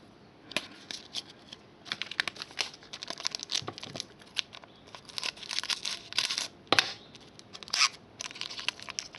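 Trading cards and their foil and cardboard packaging being handled: crinkling, rustling and light clicks, with a couple of sharper snaps near the end.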